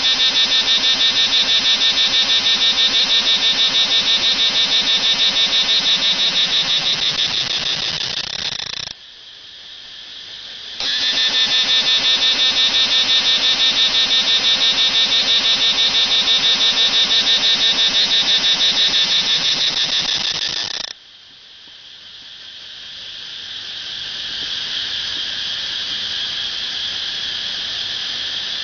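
Cicada singing: a loud, rapidly pulsing buzz that stops abruptly about nine seconds in, starts again two seconds later, and cuts off again around twenty-one seconds, after which a quieter buzz slowly swells back up.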